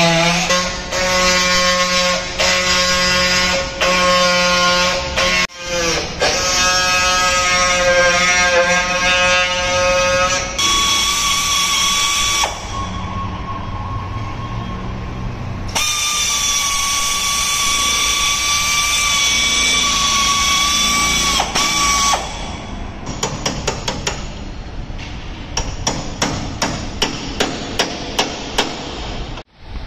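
Handheld pneumatic tool cutting into the steel B-pillar and roof joint of a car body shell while the damaged pillar is being cut out: a loud buzzing whine that stops and starts and shifts to a higher pitch partway through. In the last few seconds, a series of sharp hammer blows on metal that come faster toward the end.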